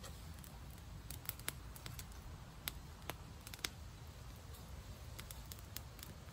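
Small wood campfire crackling, with scattered sharp snaps a second or less apart over a low steady rumble.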